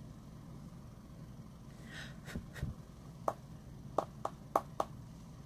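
Several light, sharp taps of a makeup brush knocked against an eyeshadow palette, spread over about two and a half seconds, with a soft breath just before them and a low steady room hum throughout.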